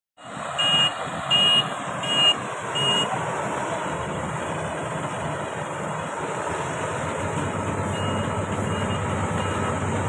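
Marksan K-BOS MS-1200 combine harvester running steadily while cutting wheat, a continuous engine and machinery noise. Four short high beeps sound about one every 0.7 s at the start and are the loudest thing; a few fainter beeps come near the end.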